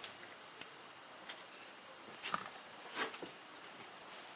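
Faint steady hiss with a few soft, sharp clicks and knocks, the two loudest about two and three seconds in.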